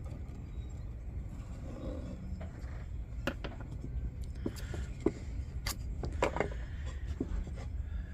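Light taps and clicks of wooden templates and a marker being handled on a workbench, scattered through the second half, over a steady low hum.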